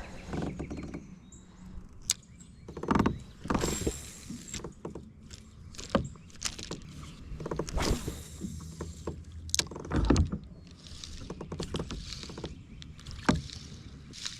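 Kayak on the water: irregular swishes and splashes from paddling and handling, with a few sharp knocks on the hull, the loudest about ten seconds in.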